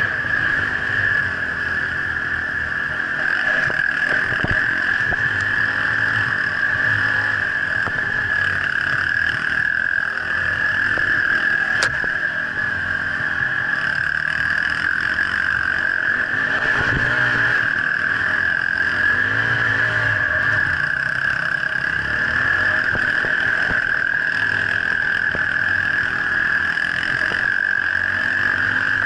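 Dirt bike engine running while riding a forest dirt trail, its low note coming and going under a constant high-pitched hum. A single sharp click about halfway through.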